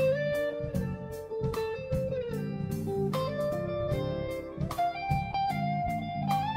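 Background music: a guitar melody with notes that slide between pitches, over a steady drum beat.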